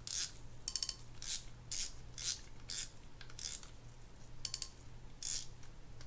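Drag clicker of a Penn Fierce III 4000LL spinning reel, clicking in short quick runs about every half second as the spool is turned by hand against the front drag to test it.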